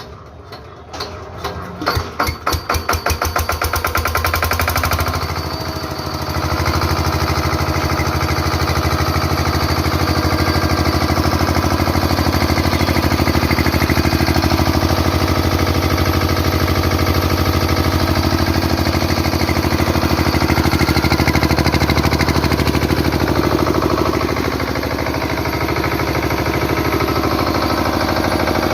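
Kirloskar 7.6 kVA generator set's engine starting. Its separate firing strokes come quicker and quicker over the first few seconds as it catches. After a brief dip it settles into a steady, even run.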